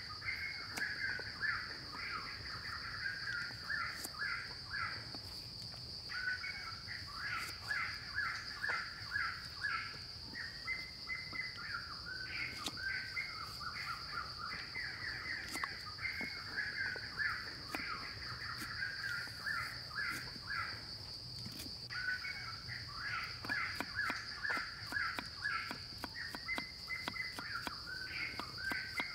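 Kitchen knife chopping a carrot on a wooden log block, a string of sharp light taps, under a steady high-pitched insect drone and birds calling in runs of quick repeated notes.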